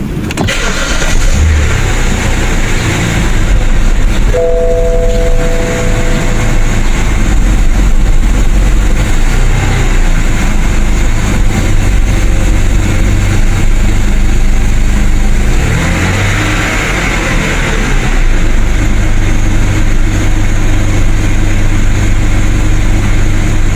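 BMW E60 car engine running steadily, with the revs changing about sixteen seconds in. A short two-note tone sounds around four seconds in.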